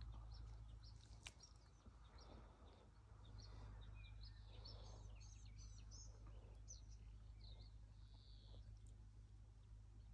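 Faint bird chirps and twittering from several short calls, over a low steady hum, with one sharp click about a second in.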